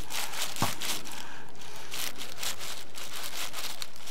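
Knife slicing a fillet off a large seer fish (king fish) along the backbone, with the plastic sheet beneath rustling and crinkling, and one small knock about half a second in.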